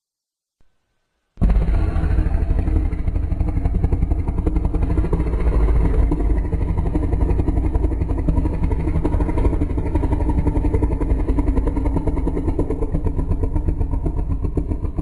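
Custom-made monster roar sound effect: a deep, rumbling growl with a fast flutter, starting suddenly about a second and a half in and held steadily for over thirteen seconds before it begins to fade at the end.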